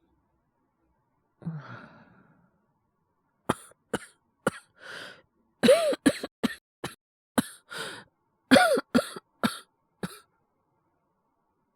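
A man's acted coughing fit from a heavy cold: a breath about a second and a half in, then a run of about fifteen harsh coughs over some six seconds, a few of them with a strained voiced catch.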